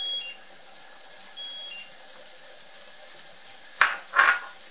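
Chopped garlic, peppers and onion sizzling gently in hot oil in a frying pan, a steady hiss. A few short high-pitched beeps sound in the first two seconds, and two brief louder noisy bursts come near the end.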